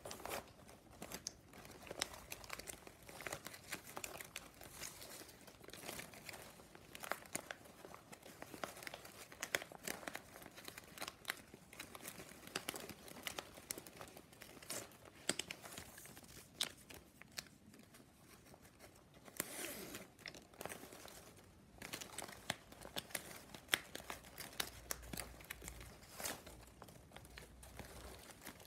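Thin plastic strapping band (packing strap) handled and woven by hand: strips slide, flex and snap against each other in irregular, fairly quiet ticks and rustles.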